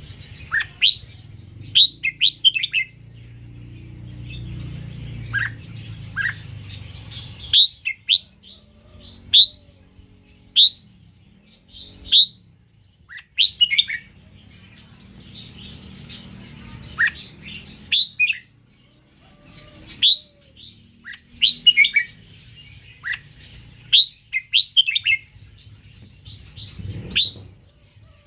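Red-whiskered bulbul of the 'Indo' strain singing: short, bright whistled phrases of a few quick notes, repeated every second or two with brief gaps, over a faint low background rumble.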